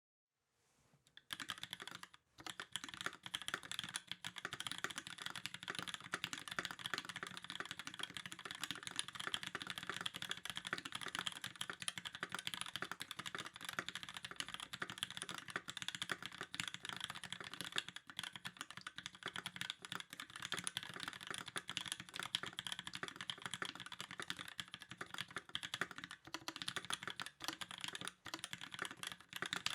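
Continuous fast typing on a KIRA EXS custom mechanical keyboard with a brass plate, lubed 67g C³ Tangerine linear switches and GMK ABS keycaps. It starts about a second in, with a brief pause just after.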